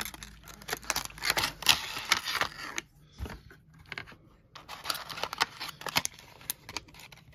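Stiff clear plastic blister packaging crinkling and crackling as it is handled and worked off a small diecast toy motorcycle, in irregular clusters of crackles with a quieter lull about three seconds in.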